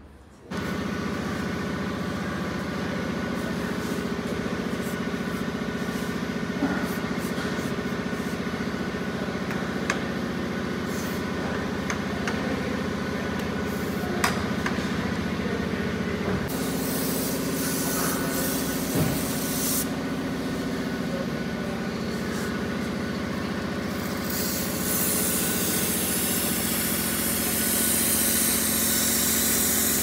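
Royal Enfield Himalayan 450's single-cylinder engine running steadily on a workshop lift, its rear wheel raised, with a few light clicks. An aerosol chain lube hisses in the last few seconds.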